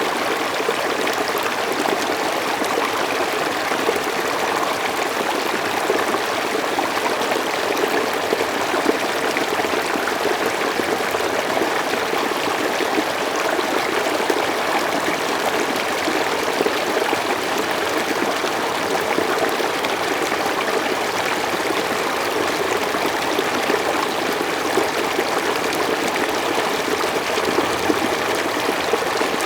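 Running water flowing steadily, an even, continuous rush with no breaks or changes.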